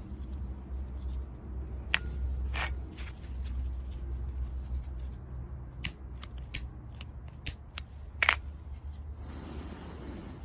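A series of sharp, separate clicks and snaps, about nine of them spread irregularly, over a low steady rumble; a steady hiss sets in near the end.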